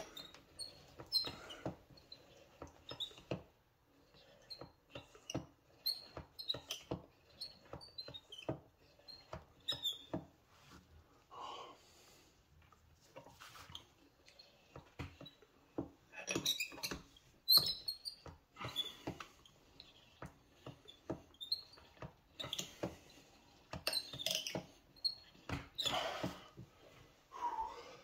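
The piston of a master cylinder for a 1995 Ford F150 being pushed in and let back out by hand during bench bleeding, giving irregular clicks and knocks with short high squeaks. One sharp click about two thirds of the way through is the loudest.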